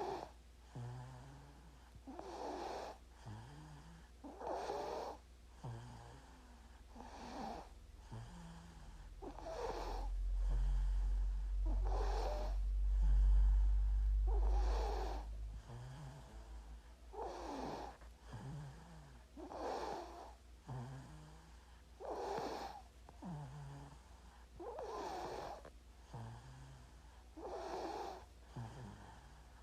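A sleeping baby snoring steadily, one snoring breath about every two and a half seconds, each a short low-pitched snore followed by a raspy breath. A low hum swells in the middle and fades again.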